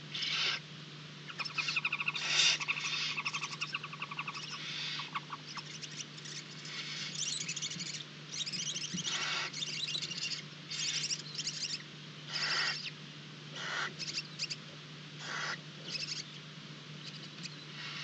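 Barn owls in a nest box giving repeated hissing calls, each lasting about half a second to a second, with a run of rapid chittering calls near the start. A steady low hum runs underneath.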